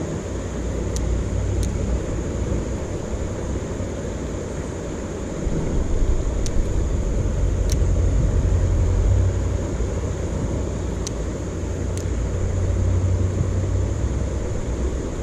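Steady low outdoor rumble that swells about five seconds in and again near the end, with a faint steady high hiss and a few faint high ticks.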